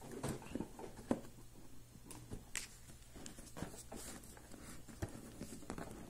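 Hands handling and opening a cardboard smartphone box: scattered light taps, clicks and rubbing sounds at irregular intervals.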